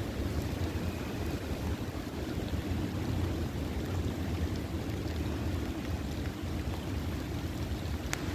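Muddy stormwater runoff and creek water flowing steadily, under a low rumble of wind on the microphone.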